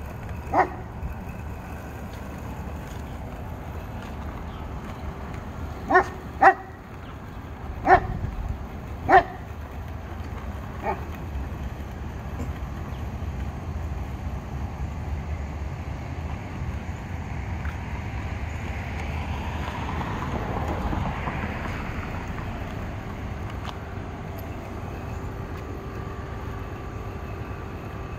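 A dog barking in short single barks, six of them in the first eleven seconds, the two close together about six seconds in among the loudest. Under and after the barks runs a steady low outdoor rumble that swells for a few seconds around twenty seconds in.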